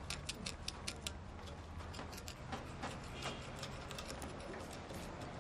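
Rapid ticking clicks, about six or seven a second, that thin out and grow fainter after about two seconds, over a steady low hum.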